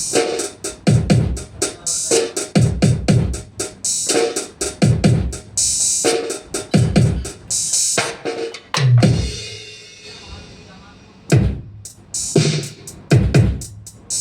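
Ddrum DDA50 electronic drum kit playing a beat: kick drums with a falling pitch about once a second under hi-hat and snare strokes. A cymbal crash about nine seconds in rings out into a short lull before the beat starts again.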